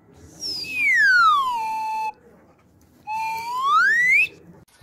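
Slide-whistle comedy sound effect: one long falling glide, then after a pause of about a second, a rising glide.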